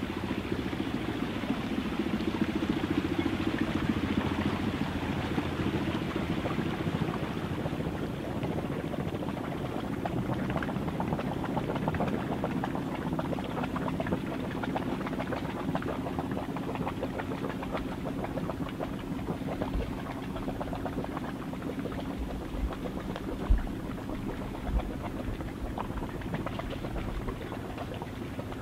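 Small sailing yacht's engine running steadily at low revs as the boat motors away, slowly growing fainter. Two brief low thumps come near the end.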